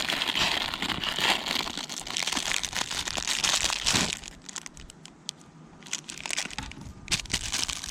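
Packaging crinkling and rustling as a small part is handled, dense for about four seconds and then dropping to scattered small clicks and rustles.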